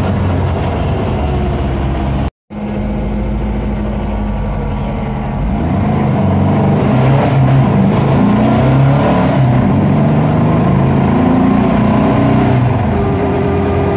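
VW Super Beetle Baja Bug's air-cooled flat-four engine, heard from inside the cabin while driving. The sound cuts out briefly about two seconds in. From about five seconds in the engine gets louder and its note climbs and falls repeatedly as the car accelerates through the gears.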